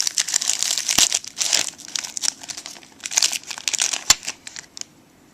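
Packaging of a trading-card pack crinkling and tearing as it is opened by hand, with a couple of sharp clicks among the rustling; it stops about five seconds in.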